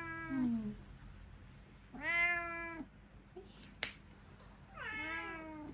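A house cat meowing in protest three times while its claws are trimmed, with one sharp snip of the pet nail clipper about two-thirds of the way through.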